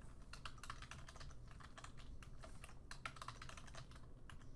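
Computer keyboard being typed on: a faint, irregular run of key clicks as a password is entered, thinning out near the end.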